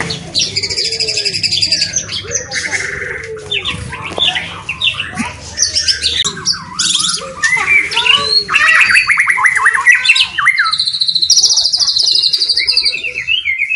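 White-rumped shama singing a loud, varied song: clear slurred whistles, rapid trills and buzzy rattles following one another without pause.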